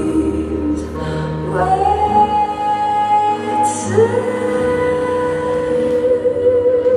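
Music with a woman singing two long held notes, the second starting about four seconds in.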